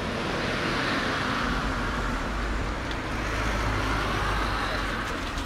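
Road traffic on a city street: cars passing, tyre and engine noise swelling and easing, over a low rumble.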